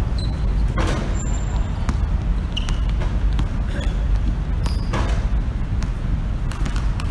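A basketball thudding on the outdoor court, once about a second in and again about five seconds in, with a few fainter knocks between, over a steady low rumble.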